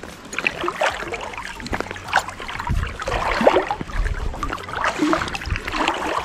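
Water splashing and lapping irregularly against a float tube as it moves on the water.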